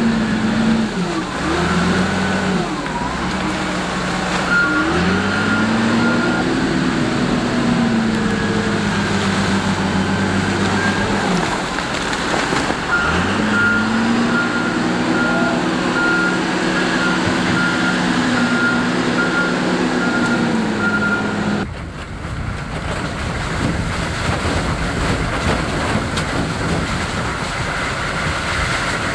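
Wheel loader's diesel engine revving up and down as it pushes and scoops mud, its reversing alarm beeping in two runs. About three-quarters through it cuts to a steady rumble of a vehicle driving along a wet dirt road.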